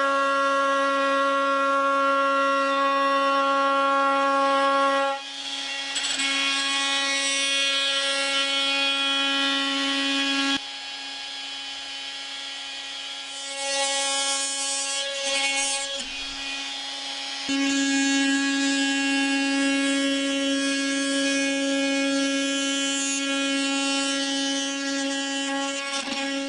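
Bosch GOP 250 CE corded oscillating multi-tool running with a steady high hum. From about five seconds in until about seventeen seconds the hum weakens and a rough rasping noise joins it, as the blade works into material, then the plain steady hum returns until it stops at the end.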